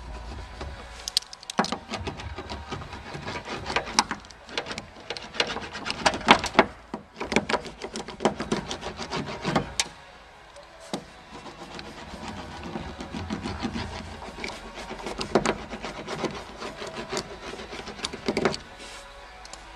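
Sound-deadening sheet being pressed and rubbed down onto the car door's inner metal panel: irregular scratchy rubbing and scraping strokes with small clicks, pausing briefly twice.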